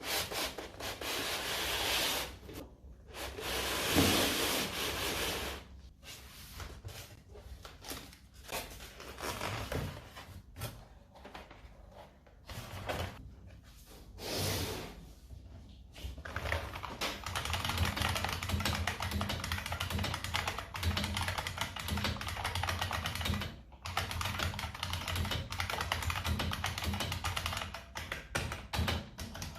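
IBM Model M keyboard's buckling spring key switches clicking: scattered single keystrokes at first, then fast continuous typing from a little past halfway. A few longer rushing noises are mixed in during the first half.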